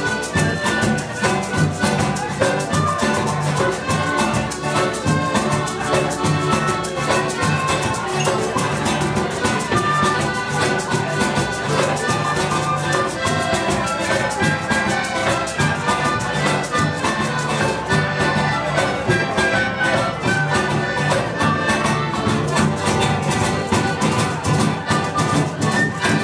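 Live band playing dense, rhythmic Latin-style music: congas, timbales and cymbals drive a steady beat under a melody from a violin and a clarinet-like wind instrument.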